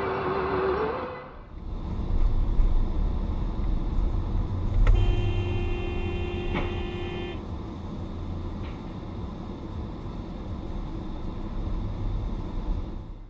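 A car horn sounds one long blast, about two and a half seconds, around five seconds in, over the steady low rumble of a car driving.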